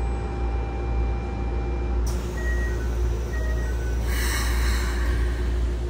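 Keikyu 1000-series train's sliding passenger doors closing: a short chime of a few tones, then a rush about four seconds in as the doors slide shut, over the steady low hum of the stopped train.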